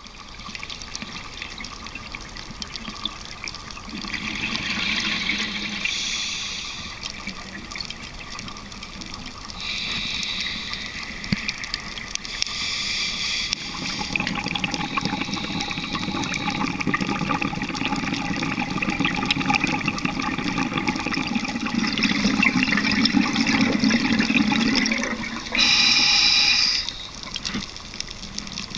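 Underwater scuba-diving sound: a diver's exhaled bubbles gurgling out of the regulator in several stretches, one long one in the middle and a short loud one near the end, over a steady watery hiss.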